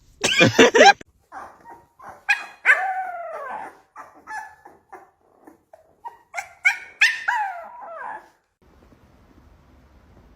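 Alaskan malamute vocalizing: a run of short yips and longer whining calls that rise and fall in pitch, after a short loud vocal burst at the start. The calls stop a little over eight seconds in.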